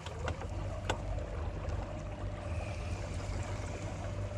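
Electric trolling motor running: a steady whine over a low rumble, with a couple of sharp clicks in the first second.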